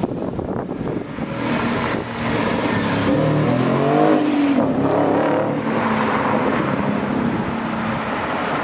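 Audi S5 with an AWE Track exhaust driving past under acceleration: the engine note climbs to a peak about four seconds in, then drops as it passes and runs on.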